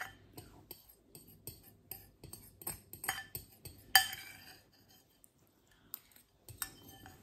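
Metal utensil scraping and clinking against a glass bowl: a run of light, quick clicks, with a louder ringing clink about four seconds in.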